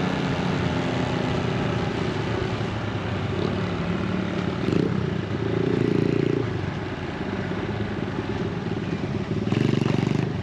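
Small motorcycle engines running with a steady rapid firing pulse, swelling louder twice, about six seconds in and near the end, as the bikes pull away.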